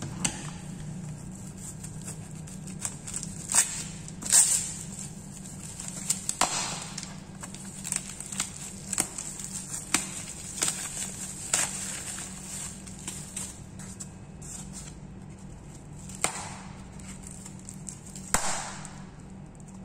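Irregular clicks and taps of small laptop parts and plastic being handled, with a few louder knocks and rustles, over a steady low hum.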